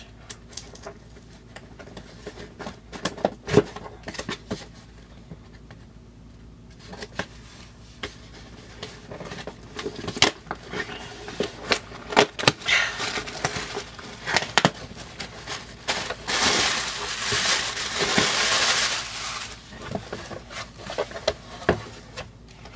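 A cardboard shipping box being opened by hand and its packaging handled: scattered knocks and clicks, with a loud continuous scratchy stretch of about three seconds a little past the middle.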